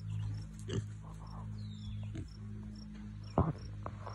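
Piglets grunting in short oinks, about four of them, the loudest a little past three seconds in, over a steady low hum.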